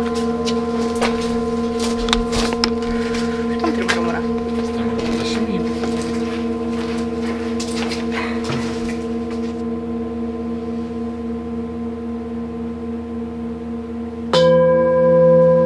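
Singing bowl ringing and slowly fading, with light clicks and knocks over the first half. About fourteen seconds in a bowl is struck again, a louder, lower-pitched ring that wavers in loudness.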